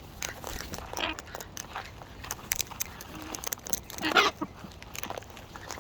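Wild birds feeding up close, cracking and chewing seed and nuts: an irregular run of sharp crunching clicks, with one louder, brief burst about four seconds in.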